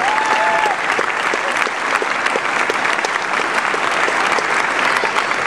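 Large theatre audience applauding steadily, a dense patter of many hands clapping at once.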